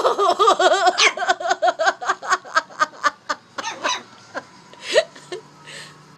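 A person laughing in a quick run of bursts, about five a second, dying away after about four seconds.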